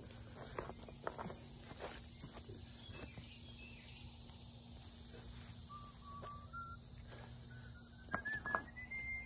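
Steady high-pitched drone of an insect chorus, with scattered knocks and rustles of rocks and sticks being handled and two louder knocks near the end. A thin tone climbs slowly in small steps through the second half.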